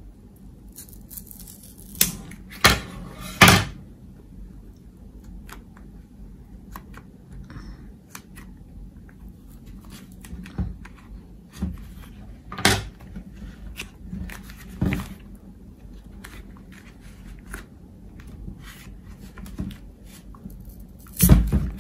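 Scissors snipping through the cardboard wall of a Pringles can: three sharp snips in quick succession a couple of seconds in, then single snips now and then, with light clicks and rustling of the cardboard and foil lining between them.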